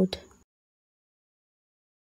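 A spoken voice trails off within the first half second, then dead silence.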